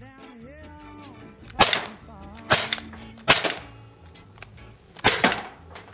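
CZ 75 P-07 CO2 blowback airsoft pistol firing four shots, each a sharp crack with the slide cycling. The first three come a little under a second apart and the fourth after a longer pause.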